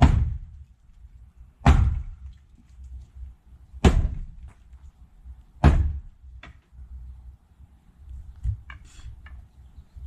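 Four heavy thuds on wood about two seconds apart, each dying away over a moment, then a few lighter knocks near the end: blows against the old wooden building's frame as it is knocked apart.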